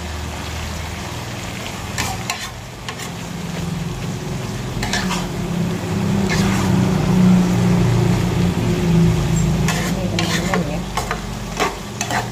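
Metal spatula stirring and tossing green beans and chicken in a sizzling nonstick wok, with scattered clacks and scrapes of the spatula against the pan over a steady low hum.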